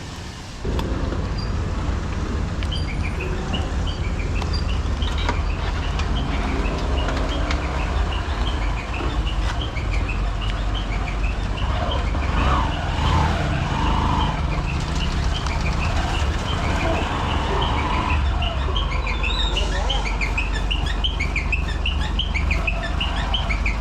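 Honda SP125's single-cylinder engine running under way, with a deep wind rumble on the helmet-mounted microphone that gets suddenly louder about a second in, and the hum of surrounding traffic. Birds chirp over it, short repeated chirps.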